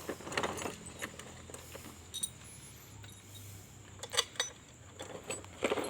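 Scattered light metallic clinks and clicks of engine parts and hand tools being handled during an engine rebuild. The sharpest clanks come about four seconds in and near the end.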